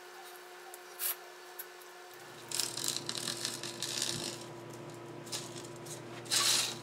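Rubber screen gasket being pressed into a window screen frame's channel, with a screwdriver and by hand, the screen mesh rustling against the frame: a click about a second in, then scattered crackling and scraping, and a short burst of scraping near the end.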